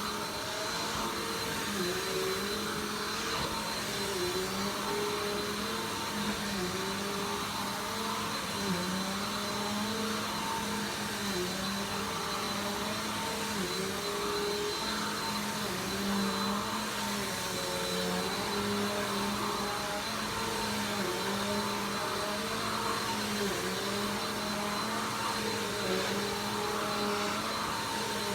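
Vacuum cleaner running steadily, its motor pitch dipping briefly every couple of seconds as it is pushed back and forth across the floor, with a thin high whine over the rushing air.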